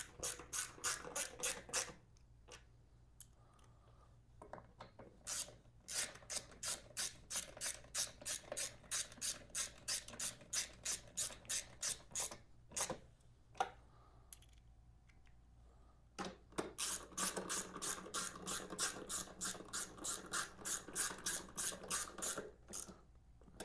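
Hand ratchet wrench clicking in quick runs, about three or four clicks a second, as the side-panel bolts are run in. There are three spells of ratcheting with short pauses between them.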